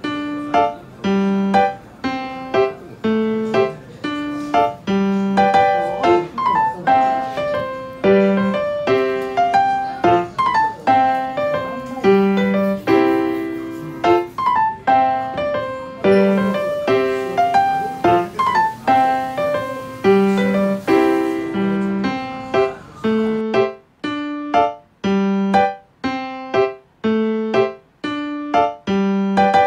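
Background music: a piano tune in short repeating phrases with a steady rhythm, turning sparser and more detached about three-quarters of the way through.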